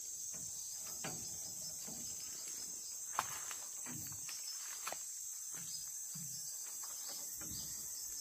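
Steady, high-pitched chirring of crickets or similar insects, with a few faint clicks, the sharpest about three seconds in.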